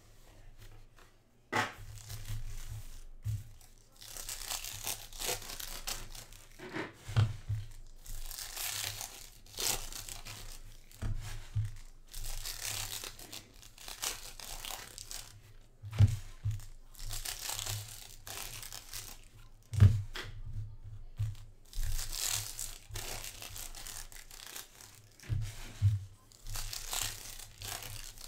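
Foil trading-card packs being torn open and crinkled by hand in repeated spells of rustling, with short dull knocks from handling on the table.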